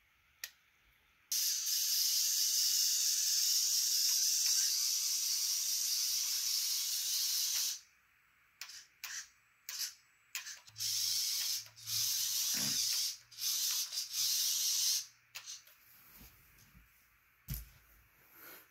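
Electric drive motors and plastic gears of a VEX robot car whirring as it drives on carpet. One long run of about six seconds, then several short stop-start bursts, with a few clicks near the end.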